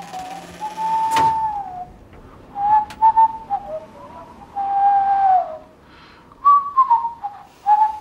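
A person whistling a wandering tune in short phrases, the notes sliding up and down with brief pauses between them. There is a single sharp click about a second in.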